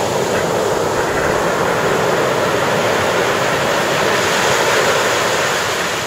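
Ocean surf: waves breaking and foam washing up over the sand, a steady rushing that swells a little about four to five seconds in.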